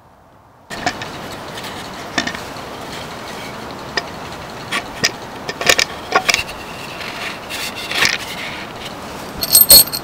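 Wooden jig being handled: scattered sharp knocks and clicks of wood on wood. Near the end comes a cluster of loud, bright metallic clinks with a ringing tone as a metal drill bit is picked up.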